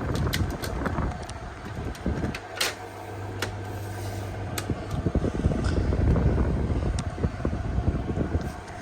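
Panasonic air conditioner running: a steady machine hum and whir over low, uneven noise, with a deeper hum standing out for a couple of seconds about a third of the way in, and a few scattered clicks.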